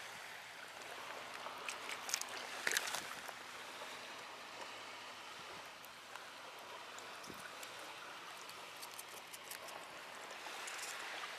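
Faint, steady trickle of seawater over a tidal mudflat, with a few small clicks and rustles about two to three seconds in.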